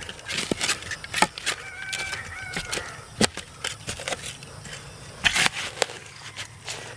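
Shovel digging into soil: a string of sharp strikes and gritty scrapes as the blade is driven into the earth and levered out, irregularly, several times.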